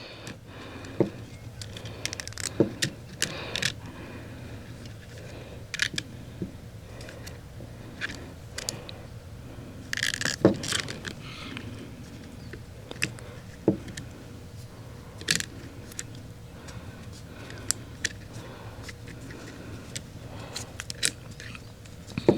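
Scattered light clicks, rattles and short scrapes as a window regulator's cable is handled and rewound around its drum, with a busier cluster about ten seconds in.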